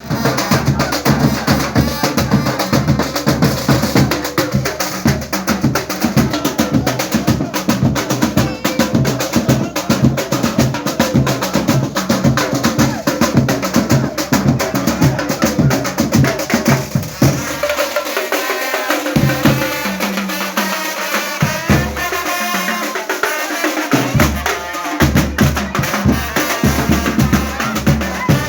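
Loud music with a fast, steady drum beat played over a party sound system during a sound check. In the second half the bass cuts out several times for a second or two at a time, then comes back in.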